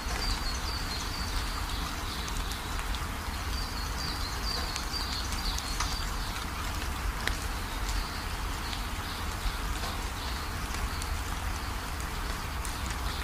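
Waterfall: a steady rush of falling water, with a run of short high chirps over it in the first five seconds or so.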